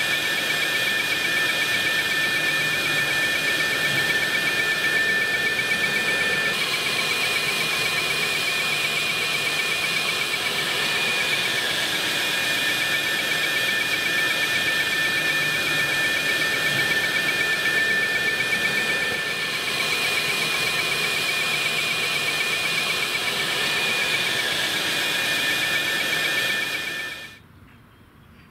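Fire hydrant flowing wide open through hoses and water diverters, a steady rush of water spraying onto pavement, with a steady high whistle over it. It cuts off suddenly near the end.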